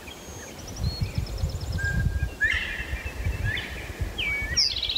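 Wild birds giving a string of short, chattering contact calls, with quick runs of repeated notes near the start and again near the end. Wind rumbles on the microphone underneath.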